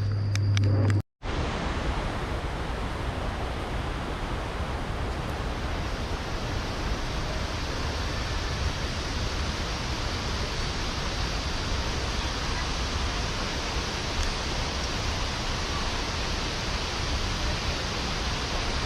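Waterfall, a steady, even rush of falling water. About a second in, a short low hum breaks off suddenly before the rush begins.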